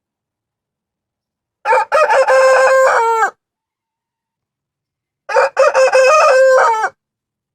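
Rooster crowing twice, each crow about a second and a half long: a short opening note, then a long held call that drops in pitch at the end.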